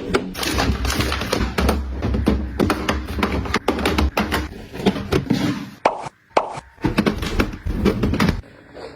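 Household items being handled and set down: a quick run of taps, clicks and knocks with some rubbing. There is a brief silence around six seconds in, and the sound turns quieter near the end.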